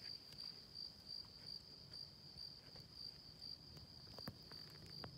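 Crickets chirping: a steady, faint high trill that pulses a few times a second, with a couple of faint taps near the end.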